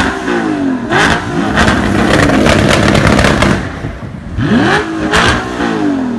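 A custom 996 Porsche 911 Turbo and an Armytrix-exhausted Audi R8 revved in turn while standing. There are quick throttle blips that sweep up and fall back, a longer held rev in the middle, and sharp exhaust pops and crackles between them.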